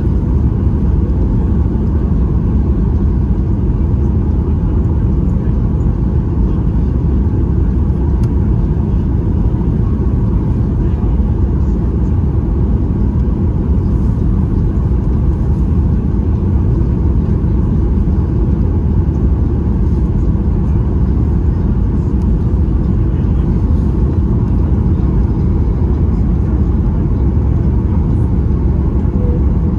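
Boeing 737-8 MAX cabin noise in flight: a steady, loud low rumble of engines and airflow that stays unchanged throughout.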